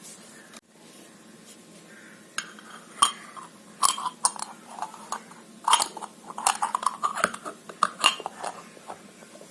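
A miniature metal pressure cooker being handled, its lid and parts clinking and tapping together in a quick irregular series of small metallic knocks.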